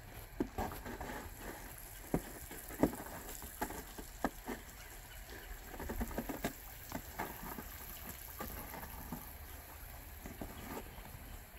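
Footsteps crunching on icy, sleet-covered ground: irregular sharp crunches about once or twice a second, with a quick run of them about six seconds in, over a steady faint hiss.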